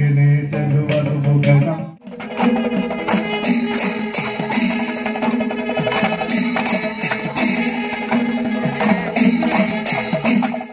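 Music: for the first two seconds a singer's voice over drum and cymbal accompaniment, then after an abrupt cut a dense rhythmic passage of drums and jingling cymbal strikes under a held melodic line.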